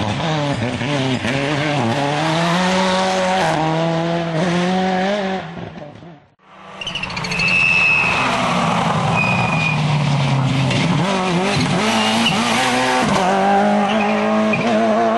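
Rally cars' engines revving hard, the pitch climbing and dropping with each gear change and lift-off, in two separate passes with a short fade about six seconds in. Brief high tyre squeals in the second pass.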